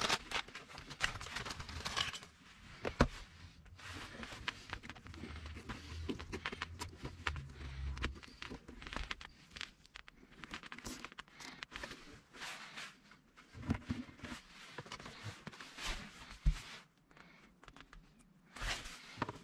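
Hands handling electrical wiring and plastic interior trim in a car's opened centre console: irregular rustling and crinkling with small sharp clicks now and then.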